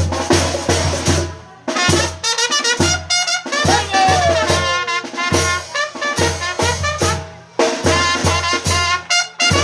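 Mexican banda (brass band) playing: trumpets and other brass over a steady beat of deep bass notes and drums, with a couple of short breaks in the playing.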